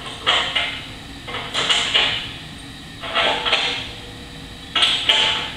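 Hand tool working on a steel snow plow blade: short rasping strokes, mostly in pairs, about every second and a half.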